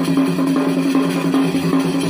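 Folk dance music: a drum beat over a steady low drone that holds two notes.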